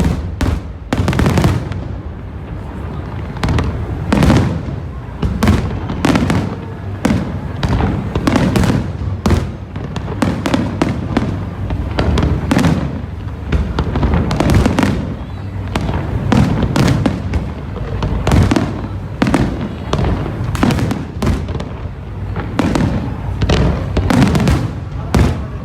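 Large aerial fireworks display: a dense, unbroken run of shell bursts, one or two strong bangs a second with deep booms and lighter crackling between them.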